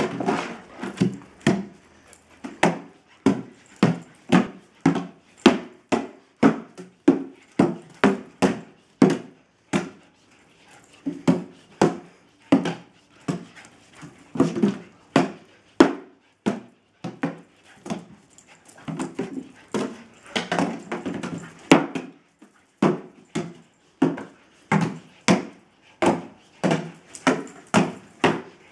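Empty plastic jug clattering on a tiled patio as a dog swings and bangs it about in its mouth: a string of sharp, hollow knocks, about one to two a second, with a few short pauses.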